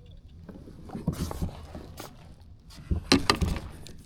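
Irregular knocks and rustles from gear being handled in a kayak, with a cluster of louder sharp knocks about three seconds in.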